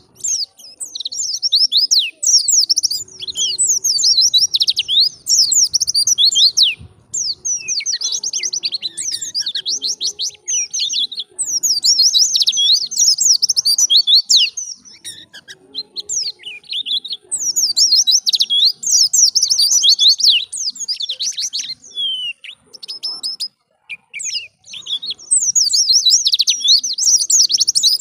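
White-eye (pleci) song: rapid, high-pitched chirping trills in bursts of a few seconds, with short pauses between them.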